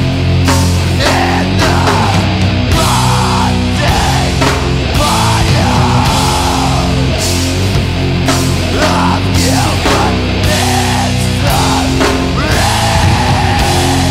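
Loud heavy hardcore/powerviolence music: heavily distorted guitars and bass holding long, low chords over steady drum hits.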